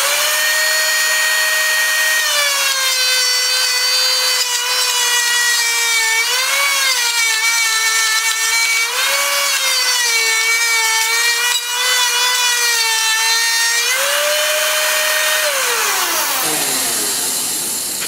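Table-mounted router switched on, its high motor whine dropping in pitch as the bit bites into a rough-sawn board fed along the fence to cut a rabbet. The pitch wavers as the cut goes on, rises again when the bit comes free about 14 seconds in, then falls away as the router winds down near the end.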